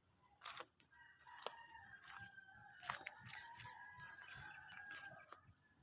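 A rooster crowing faintly: one long drawn-out crow lasting about four seconds. A few soft clicks are heard alongside it.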